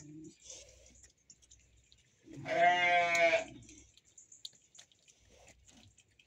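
A single loud bleat, about a second long, from a farm animal about two seconds in, with faint rustling and small knocks around it.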